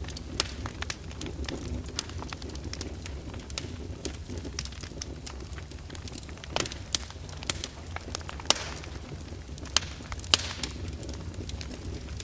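Fire burning in a fireplace, crackling: a steady low rumble under frequent sharp pops and snaps, with several louder pops in the second half and a brief hiss about eight and a half seconds in.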